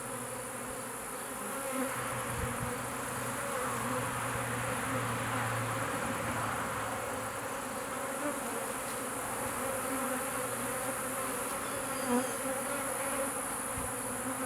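A captured swarm of honeybees buzzing around and into a hive box: a steady hum of many wings, swelling slightly in the middle, as the swarm settles into its new hive.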